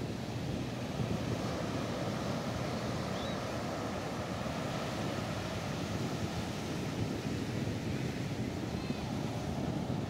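Small Atlantic Ocean waves breaking and washing up onto a sand beach, making a steady, continuous surf wash.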